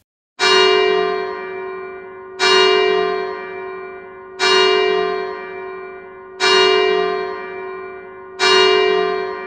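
A single church bell tolling five times on the same note, one strike about every two seconds, each ringing on and fading before the next.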